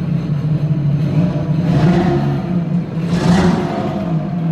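Sea-Doo Spark personal watercraft engine running on a test start, blipped twice, about two and three seconds in. It is being checked for a misfire after the broken ignition-coil wire was soldered.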